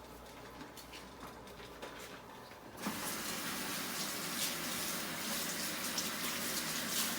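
A few small clicks and knocks, then about three seconds in a kitchen tap is turned on and water runs steadily into the sink.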